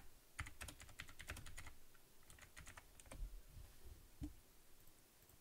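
Faint typing on a computer keyboard: a quick run of key clicks over the first two seconds or so, and a few more about three seconds in.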